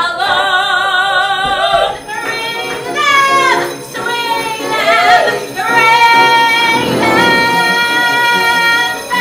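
A woman singing long held notes with a wide vibrato, gliding between pitches; the longest note is held for about three seconds near the end.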